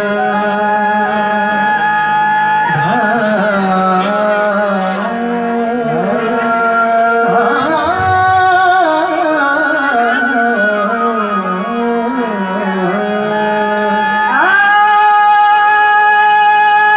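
Live South Asian devotional music: a male voice sings long held notes with bending, ornamented runs, over harmonium and tabla accompaniment.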